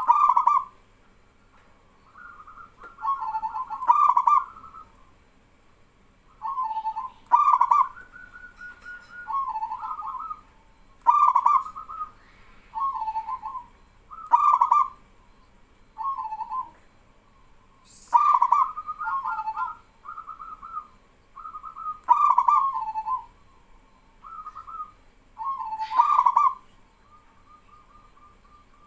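Male zebra doves (perkutut) cooing: short rolling coo phrases repeated every second or two, one bird answering another, with calls overlapping at times.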